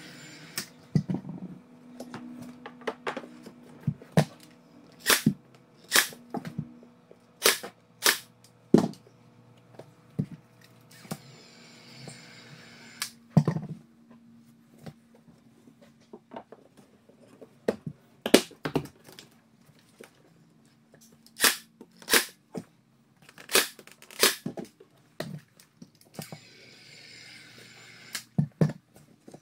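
Ryobi 18V AirStrike 23-gauge headless pin nailer firing pins into shiplap boards: some two dozen sharp snapping shots at irregular intervals, several in quick pairs.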